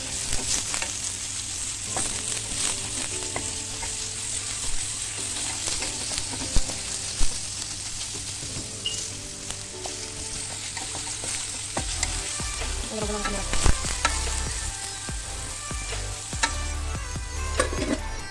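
Sliced onions and garlic sizzling in hot oil in a stainless steel pan, with a spatula stirring and scraping against the metal and a few sharp knocks on the pan.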